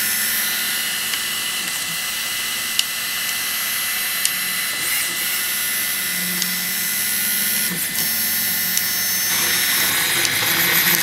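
Small desktop 3D printer at work: its stepper motors hum and whine in shifting tones as the print head and bed move, over a steady hiss, with a few faint ticks. The sound grows fuller near the end.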